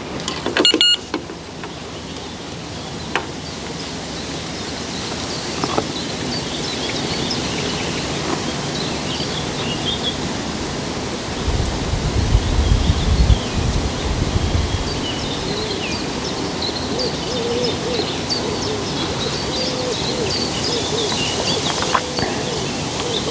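Birds chirping and singing, with a dove cooing in low repeated notes through the second half. A low rumble comes in for a few seconds around the middle.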